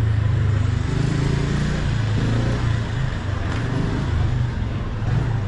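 Busy city street ambience dominated by a steady low motor-vehicle engine hum, with faint voices of passers-by underneath.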